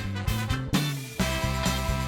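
Background music with a steady beat in an upbeat swing style, with brass.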